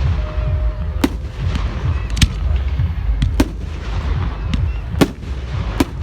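Fireworks exploding: sharp bangs about once a second, some louder and some fainter, over a constant low rumble of more fireworks going off.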